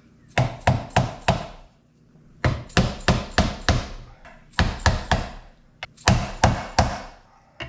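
Hammer blows on a seal driver, driving a new grease seal into the hub of a 1956 Plymouth Savoy brake drum. The strikes come in four quick runs of three to six, about three a second, with short pauses between.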